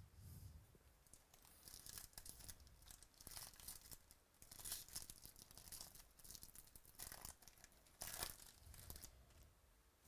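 Quiet, irregular tearing and crinkling of trading-card pack wrappers being ripped open and handled.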